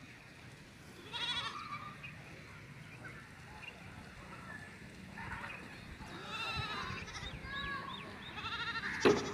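Young goats bleating in short, quavering, high bleats: one about a second in, then several in quick succession from about six seconds on. A sharp knock just after nine seconds is the loudest sound.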